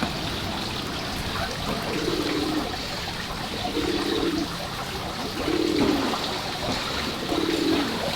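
A dove cooing, a low coo repeated about every two seconds, over a steady trickle of running water.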